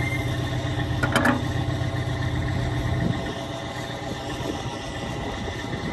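Heavy truck engine running steadily at idle, with a brief clatter of knocks about a second in. The engine sound drops somewhat about three seconds in.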